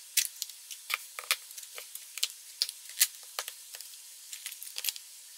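Makeup compacts and bronzer cases being set down and shuffled into place on a tabletop: a run of light, irregular clicks and taps.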